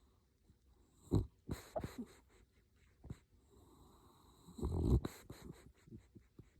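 A sleeping pet snoring: a short snore about a second in and a longer, louder one around five seconds in, with smaller breath noises between.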